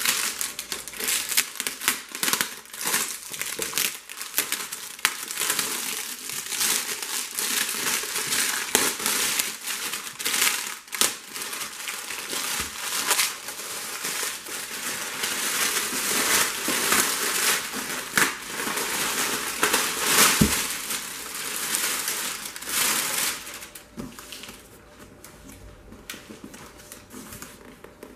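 Clear plastic shrink wrap crinkling as it is torn and pulled off a cardboard box, in irregular bursts of crackling that die down near the end.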